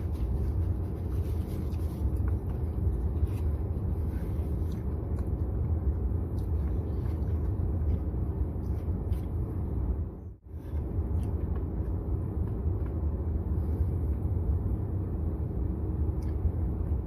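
Steady low rumble of a car in motion, road and engine noise heard from inside the cabin; it cuts out briefly about ten seconds in.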